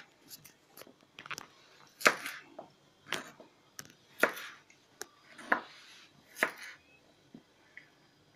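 Small knife slicing peeled garlic cloves on a plastic cutting board: a series of short, crisp cuts, roughly one a second, each blade stroke knocking on the board.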